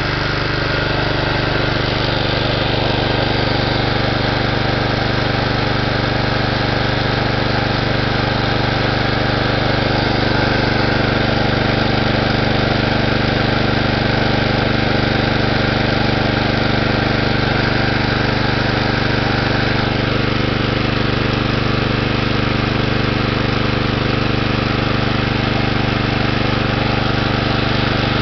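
John Deere 14SE walk-behind mower's Kawasaki FC150V single-cylinder engine running steadily at a constant speed.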